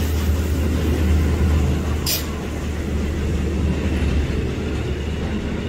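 Steam-hauled excursion train running: a steady low rumble, with a brief sharp hiss about two seconds in.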